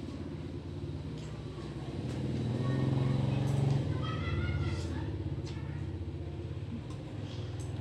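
A passing motor vehicle's engine: a low hum that grows to its loudest about three to four seconds in, then fades.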